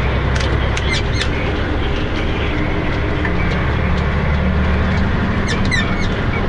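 A road vehicle's engine and road noise, heard from inside the cab while driving, as a steady low drone whose engine note shifts about halfway through. A few short clicks and squeaks sound over it, most of them near the end.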